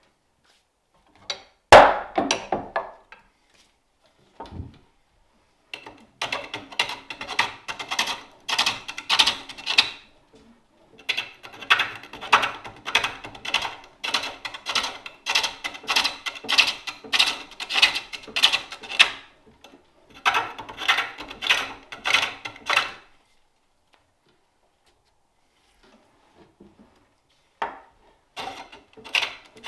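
Wooden bowl blank being cut on a foot-treadled spring-pole lathe: the turning tool bites the spinning wood in quick, rhythmic strokes, in several runs with pauses between them. A sharp knock sounds near the start.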